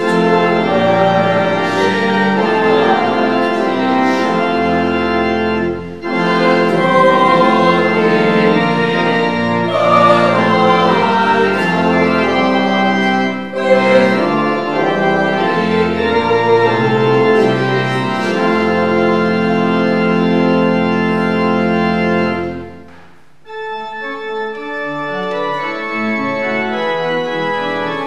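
Church organ playing a hymn tune in full sustained chords. About 23 seconds in it breaks off briefly, then carries on more softly.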